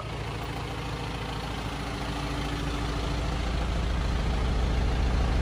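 Turbocharged John Deere diesel crate engine in a 1969 GMC 2500 pickup idling steadily, a low even rumble that grows gradually louder.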